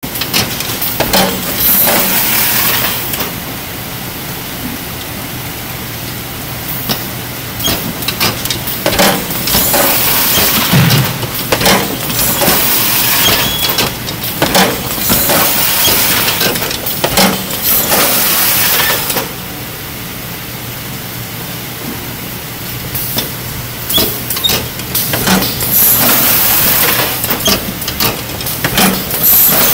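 Sims case sealer running on a packing line: a steady motor hum under clattering and hissing as cartons are carried through and taped. Quieter spells come about 3 to 7 seconds in and again about 19 to 23 seconds in.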